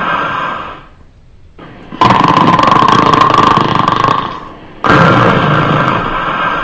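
A person snoring loudly, one long snore after another in a slow breathing rhythm: a snore fading out under a second in, a longer one from about two to four seconds in, and another starting near the end.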